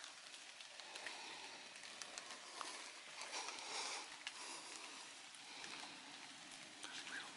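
Rain pattering on leaves and wet ground, a steady hiss with many small drop ticks.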